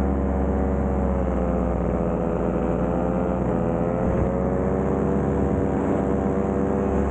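Paramotor engine and propeller running steadily in flight, a droning note whose pitch dips briefly about three and a half seconds in and then climbs back.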